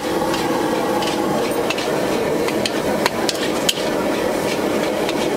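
A metal spatula scraping and clanking against a large wok as food is stir-fried. Sharp irregular clinks ring out over a steady hiss.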